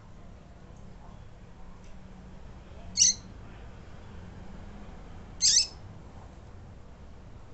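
Female coleiro (double-collared seedeater) giving two short, high, piping calls about two and a half seconds apart, each sliding downward in pitch. This is the female's calling piado that is used to stir a male coleiro into song.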